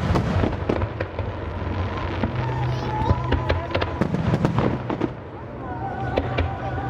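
Fireworks display: rapid, overlapping bangs and crackles, with a brief lull about five seconds in.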